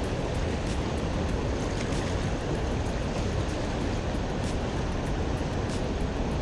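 Fast white-water river below a spillway, rushing steadily over rocks, with many small splashes and spatters over a deep, even rumble.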